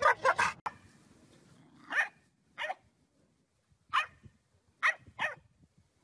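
A dog barking: five short, separate barks with gaps of up to a second and a half between them. At the very start is the last moment of a dog's strange, gobbling warble.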